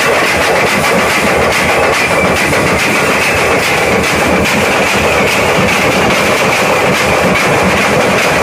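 A troupe of snare drums and a bass drum played together with sticks in a fast, dense, unbroken rhythm, loud throughout.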